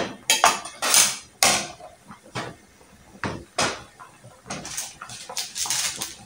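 Kitchenware clattering on a stainless-steel counter: a metal ladle and spoon clinking against a plate and a ceramic bowl set down, a series of sharp knocks. After about four and a half seconds, quicker, softer crackling as a plastic seasoning sachet is handled.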